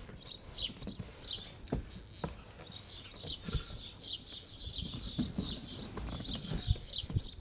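Small birds chirping without pause, short high calls a few times a second, over soft thuds and rustles of hands patting a fitted cover down onto a car dashboard.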